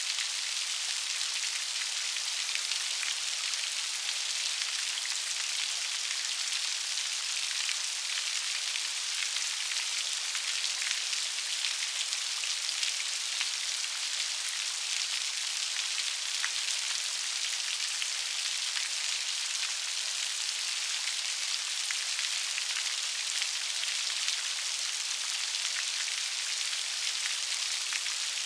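Steady rainfall: an even high hiss, dense with small raindrop ticks.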